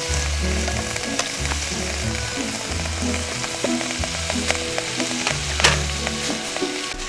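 Food frying and sizzling, with scattered clicks of a utensil stirring it, the sharpest a little over halfway through, over background music with a regular bass line.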